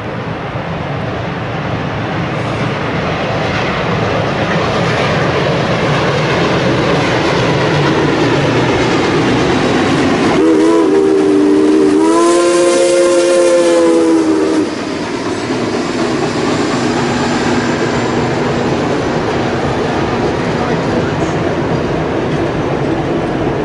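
Reading Blue Mountain and Northern steam locomotive No. 425 approaching and crossing a bridge, its rumble growing steadily louder. About ten seconds in the chime whistle gives a short blast, then a longer one of about two and a half seconds sounding several notes together; after that the passenger coaches roll steadily past.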